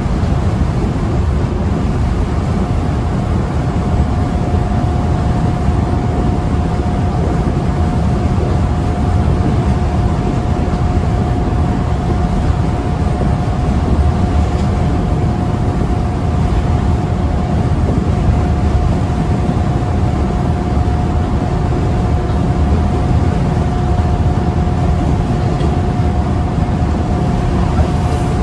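Scania L94UB bus with a ZF automatic gearbox, heard from inside the saloon while cruising at steady speed. There is a constant engine and road rumble and an unbroken steady whine from the driveline.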